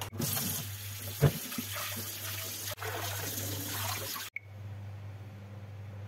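Tap water running onto flattened rice in a plastic colander over a steel sink, with one sharp thump about a second in. The water stops suddenly after about four seconds, leaving only a low steady hum.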